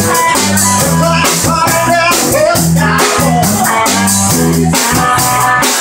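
Live blues-rock band playing loud and steady: electric guitar, a bass line stepping through notes, a drum kit with constant cymbal, and a singer's voice over the top.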